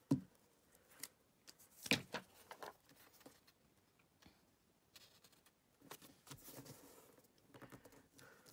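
Paper being handled: a cut-out green paper hill is set on a card and pressed flat by hand, with soft rustles and light taps. There are two sharper knocks, one just after the start and one about two seconds in.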